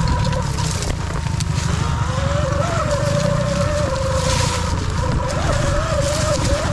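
Sur Ron electric dirt bike's motor whining while riding, its pitch wandering up and down with the throttle, over a steady low rumble.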